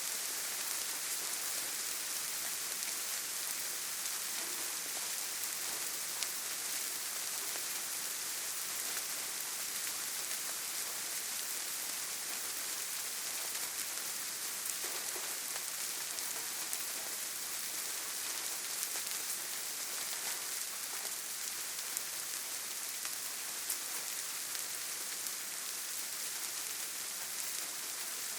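Steady rain falling, an even hiss with a few individual drops ticking here and there.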